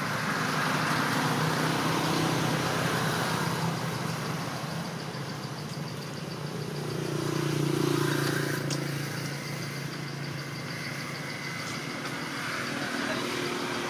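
A motor engine running steadily with a low hum, swelling louder twice as if vehicles pass by.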